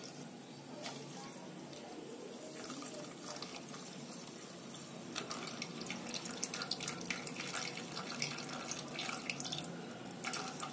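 A thin stream of water poured onto granulated sugar in a nonstick kadai, a soft steady trickle that grows a little louder about halfway through, as just enough water is added to cover the sugar for a sugar syrup.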